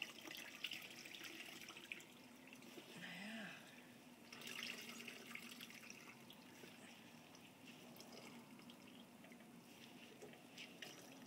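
Faint trickling and dripping of dye liquid as a wet hank of yarn is squeezed out by gloved hands over a jug, coming in patches, over a steady low hum.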